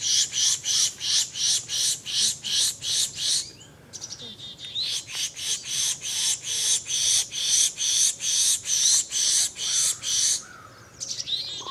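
Pishing: a person making a rapid run of hissing 'psh' calls, about three a second, to draw songbirds in. The calls come in two long runs, broken by a short pause about four seconds in.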